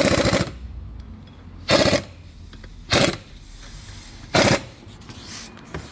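Impact wrench hammering in four short bursts a second or so apart, running the rear hub bearing's Torx bolts down to fully tight.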